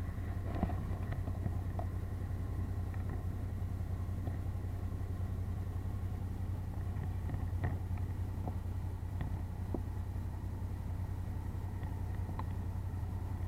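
Motorcycle engine running at a steady cruising speed while riding: an even low hum, with occasional faint ticks.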